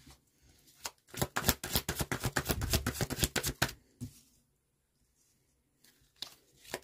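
A deck of oracle cards being shuffled by hand: a quick run of card flicks for a couple of seconds, a pause, then more shuffling near the end.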